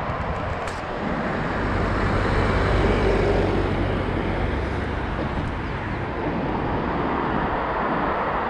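Road traffic noise beside a multi-lane road, a steady rushing with a low rumble that swells about a second in and eases off around five seconds in.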